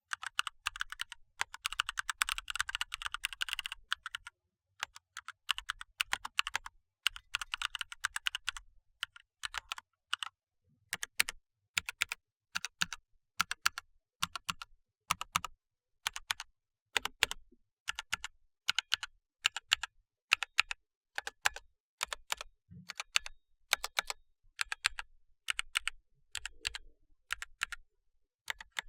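Mechanical keyboard with ASUS ROG NX Red linear switches being typed on: two quick runs of rapid keystrokes, then single key presses about once or twice a second.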